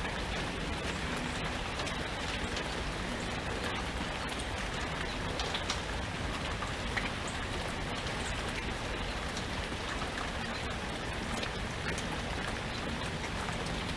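Steady rain falling, with individual drops ticking sharply here and there.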